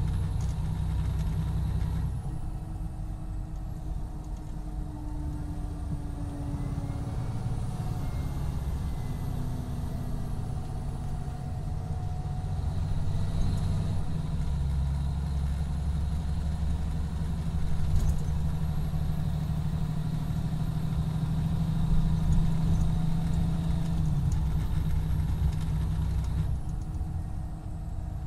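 Cummins ISX12 diesel engine of a 2017 MCI D4500CT coach running, a steady low drone that swells and eases a few times.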